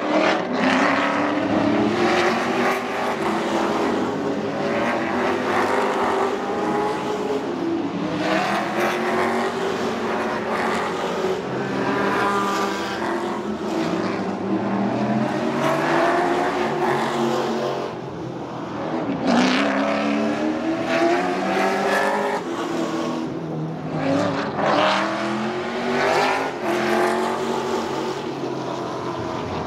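Race cars passing at speed one after another, engines revving up and down through the gears, each note rising and falling in pitch as a car goes by.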